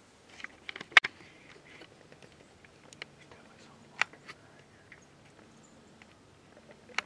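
A few sharp clicks and knocks over a faint low hum. The loudest is about a second in, after a short cluster of smaller clicks, and single knocks follow near the middle and at the end.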